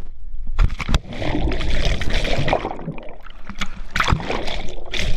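A slider plunging into the sea from a waterslide: sharp knocks and a splash within the first second, then churning, bubbling water heard with the microphone underwater.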